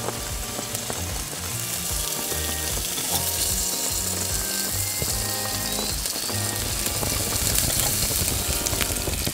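Meat sizzling on a hot ridged grill pan, with a few snips of kitchen scissors cutting through it. Background music with a bass line plays along.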